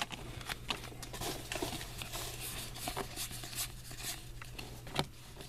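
Trading cards and pack wrappers being handled: light rustling with scattered small ticks and one sharper tick near the end, over a steady low hum.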